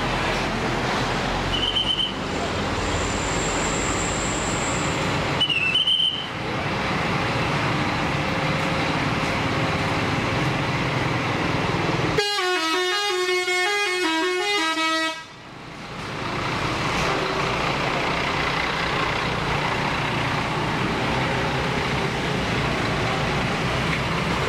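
A bus's telolet horn plays a quick tune of rapidly changing notes for about three seconds near the middle, over steady engine and traffic noise. Earlier there are a few short, high beeps.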